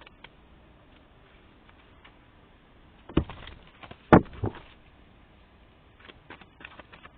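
A few sharp knocks and taps: one about three seconds in, the loudest just after four seconds, another soon after, then lighter taps near the end.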